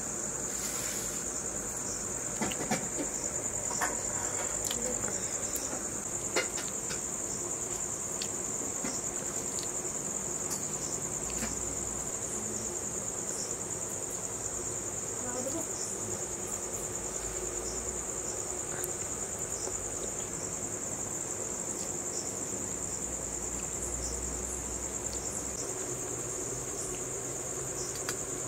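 Crickets trilling in one steady high-pitched band throughout. Several light clicks in the first seven seconds come from fingers mixing rice on a steel plate.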